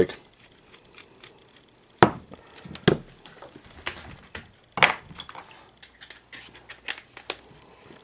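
Scattered sharp metallic clicks and knocks as a screwdriver is worked on the screws of a small two-stroke carburetor and the carburetor, a loose screw and the screwdriver are set down on and picked up from a workbench. The loudest knock comes about two seconds in, with a few more over the following seconds.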